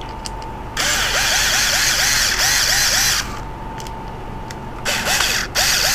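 Strain relief of a 30-amp RV power plug being tightened by hand: plastic parts grinding against each other in two rasping stretches of about two seconds each, with quick scratchy strokes a few times a second.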